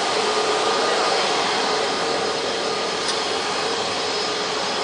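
Boeing 747-400 jet engines running, a steady rush with a held whine.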